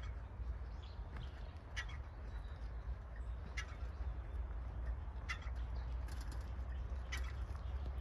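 A bird calling in short, sharp notes, one about every two seconds, over a steady low rumble.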